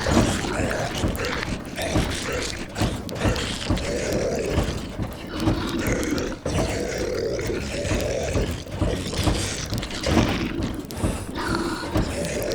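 Sound-effect zombie moans and growls, swelling and fading one over another, over a steady hiss of rain on a roof.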